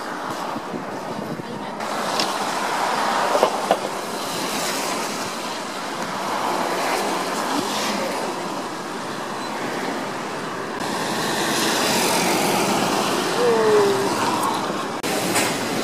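Steady road and traffic noise heard from inside a moving car in city traffic, with a couple of brief knocks a few seconds in.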